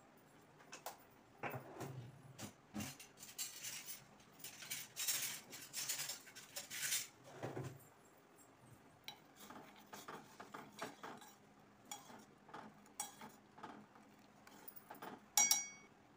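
Quiet clatter of kitchen utensils against pots and dishes: a dense run of scraping and clicking over the first several seconds, then scattered clicks, and one short ringing metallic clink near the end.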